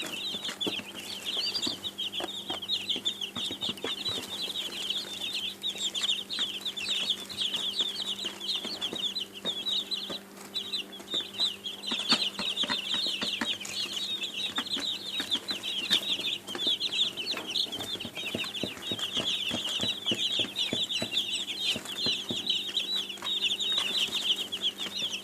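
A group of young chicks peeping nonstop, many high, short peeps overlapping, with a brief pause about ten seconds in.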